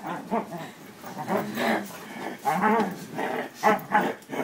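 Husky vocalizing: a string of short calls, each bending up and down in pitch.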